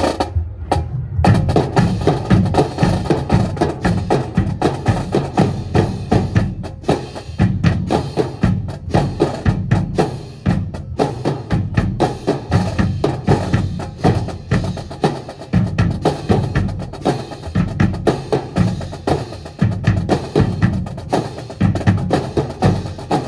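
Marching drum corps playing a fast drill cadence of drums and sharp stick clicks, the strikes coming thick and continuous from about a second in.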